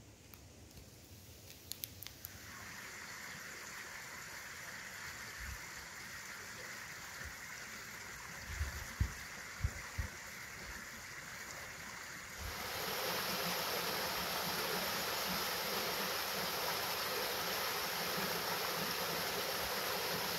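Running water of a small hill stream flowing over stones. About twelve seconds in, a cut brings in a louder, fuller splashing of a small rocky cascade. A few low thumps come near the middle.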